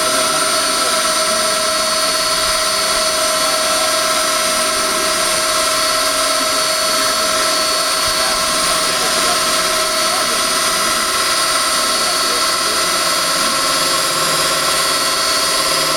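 Golz 460 V, 1000 Hz high-frequency water-cooled core drill running steadily as its core bit cuts into a concrete block, giving a steady whine made of several fixed tones over an even hiss.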